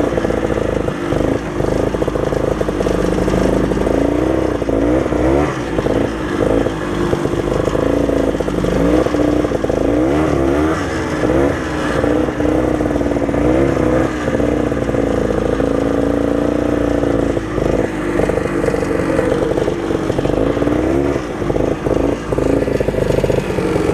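Old Ski-Doo snowmobile's two-stroke engine running under way, its pitch rising and falling again and again with the throttle.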